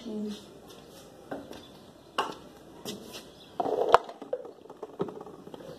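Plastic toiletry bottles and small containers being handled and set down, giving a few separate light knocks and clatters, with a sharp click about four seconds in the loudest.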